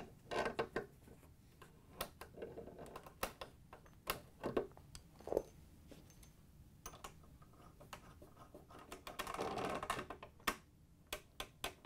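Pliers clicking and scraping on the metal coupling nuts of washer fill hoses as they are tightened onto brass supply valves: a scatter of sharp, irregular clicks, with a stretch of soft rustling about three-quarters of the way through.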